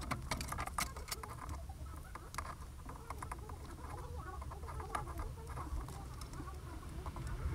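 Car stereo wiring harness wires being handled by hand: light, irregular clicking and rustling of insulated wires and connector plugs, busiest in the first second or so.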